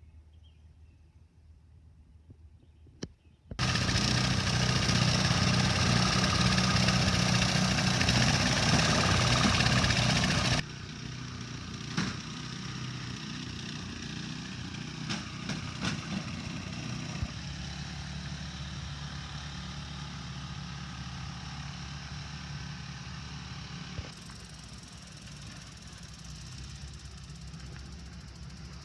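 An engine running with a steady low hum, loud at first after a sudden start, then dropping abruptly to a quieter, even drone with a few sharp clicks.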